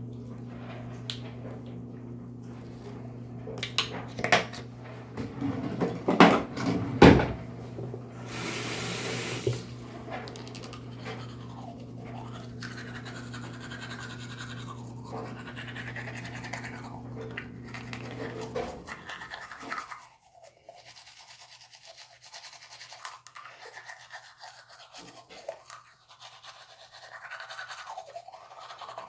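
Toothbrushing at a bathroom sink: a manual toothbrush scrubbing teeth, with clicks and knocks from the brush and toothpaste being handled. A steady low hum runs under it and stops about two-thirds of the way through.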